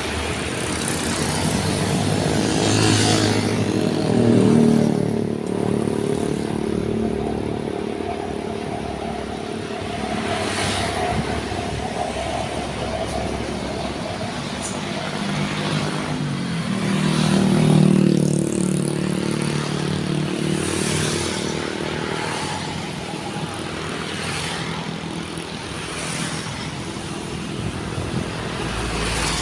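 Road vehicle engines running and passing, the engine noise swelling loudly about four seconds in and again near eighteen seconds, with a steady higher tone in between.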